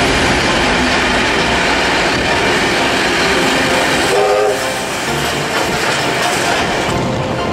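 A steam train running close alongside on the parallel track, heard from the open window of another moving train: a steady rushing noise of wheels, rails and wind, with some rail clatter, as the carriages, then the tender and the R class steam locomotive R761 slide past.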